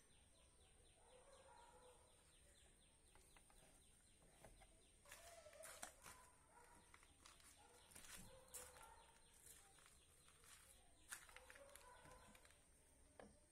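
Near silence: faint background ambience with a steady high tone, a quick run of faint ticks in the first few seconds, then scattered light clicks and faint chirps.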